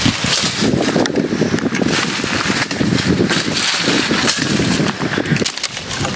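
Wind buffeting the microphone, mixed with irregular crackling rustles of dry leaves and brush as the handheld camera is moved about.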